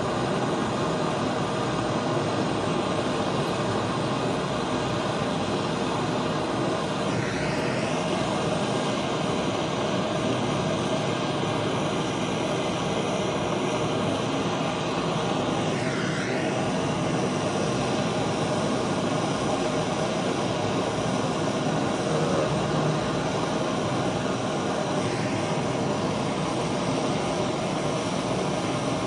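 Gas brazing torch burning steadily with an even hiss, its flame heating a copper refrigerant pipe joint to red heat for brazing.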